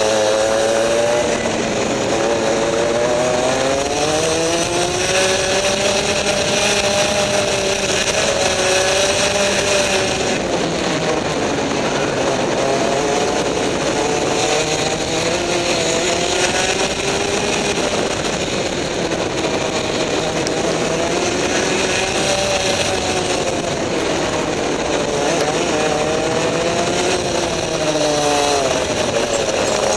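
Rotax two-stroke kart engine at racing speed, heard from on board the kart, its pitch climbing as it accelerates and falling as the driver lifts for corners, several times over.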